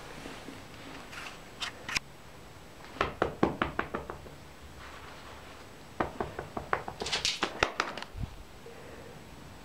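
A cat scampering across a parquet floor: quick runs of light knocks and taps from its paws and claws. There are a couple near the start, a fast flurry about three seconds in, and another from about six to eight seconds.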